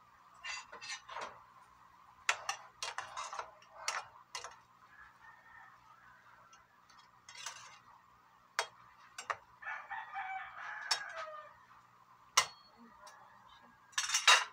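A metal ladle clinks and scrapes against a pan of simmering green beans and meat, in sharp scattered knocks, the loudest two near the end. About ten seconds in, a rooster crows in the background.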